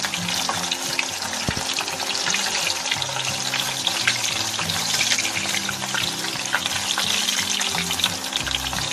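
Cornflour-slurry-coated paneer slices sizzling and crackling in hot oil, a dense steady spatter of quick pops.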